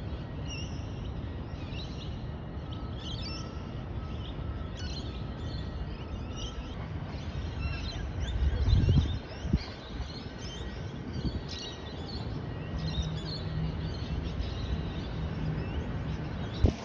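Small birds chirping repeatedly in short calls, over a steady low rumble, with a louder low swell and a brief knock about nine seconds in.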